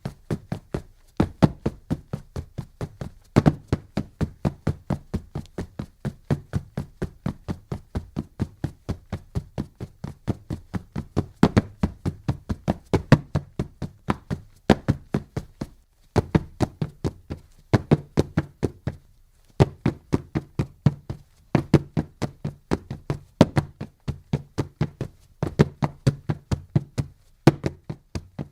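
Rapid running footsteps of a hurdler sprinting on a track, about four to five foot strikes a second, in runs broken by short pauses.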